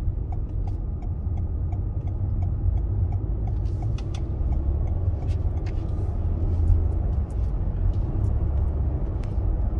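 Steady low rumble of a car driving, heard from inside the cabin: engine and road noise, with faint clicks now and then.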